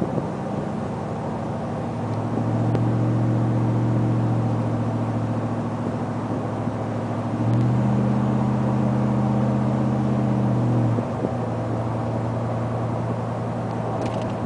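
2010 Ford F-150 V8 with a Flowmaster 40 Series exhaust, heard from inside the cab while driving: a steady low exhaust drone. It grows louder about two seconds in as the throttle is applied, louder again past the halfway point, and drops back near the end.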